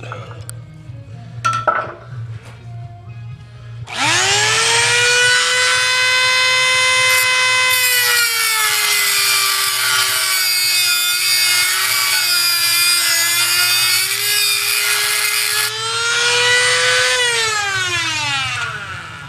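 Small rotary tool with a cut-off wheel spinning up to a high whine, then cutting metal: the pitch sags and wavers under load for several seconds, rises again as the wheel comes free, and falls away as the tool is switched off near the end. A couple of light knocks come before it starts.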